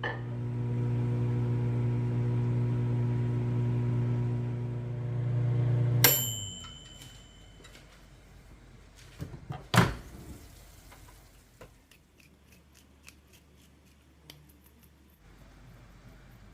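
Microwave oven running with a steady hum, which stops about six seconds in with a click and one high beep, the end of the cooking cycle. A loud clunk follows a few seconds later, then faint small clicks.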